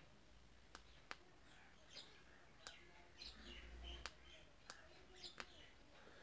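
Faint birds chirping in short, falling calls in the background, with a handful of sharp, isolated clicks scattered through.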